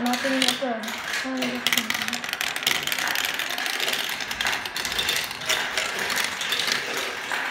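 Many marbles rolling and clattering down a marble run: a dense, continuous rattle of small clicks.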